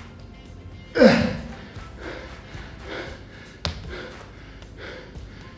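A man straining and breathing out hard through bent-knee leg raises done to failure, over steady background music. The loudest is a strained cry falling in pitch about a second in, followed by weaker efforts about once a second. There is a sharp click just past halfway.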